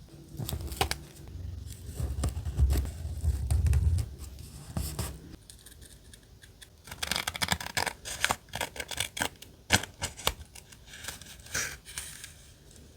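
Paper being handled on a desk with some dull low thuds, then from about halfway a quick run of sharp snips from scissors cutting paper.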